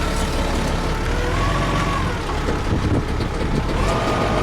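A heavy vehicle's engine running, a steady low rumble with a faint whine above it that shifts up and down in pitch.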